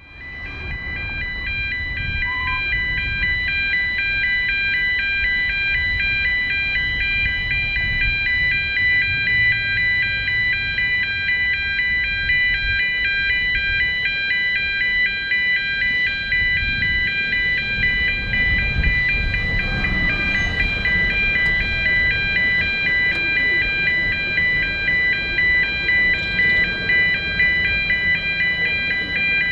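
Level crossing warning alarm sounding: an electronic alarm of several high steady tones, pulsing on and off evenly, over a low background rumble.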